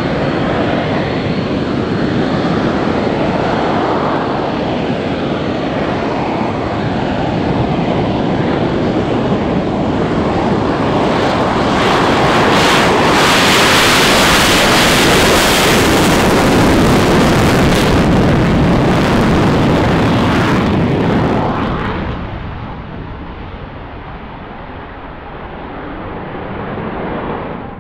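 Dassault Mirage 2000's single turbofan engine at full power through a takeoff: a loud, steady jet roar that swells to its loudest and harshest as the fighter rolls close past, then drops away about two-thirds of the way through as it lifts off and climbs away.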